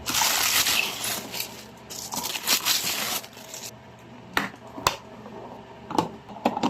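Crinkling and rustling of small items being handled for about three and a half seconds, then several separate sharp clicks.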